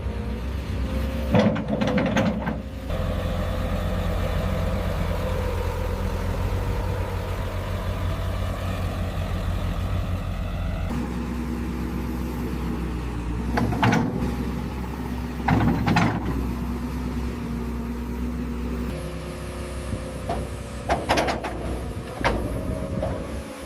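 Heavy diesel construction machinery running steadily, with sharp metallic clanks and knocks now and then.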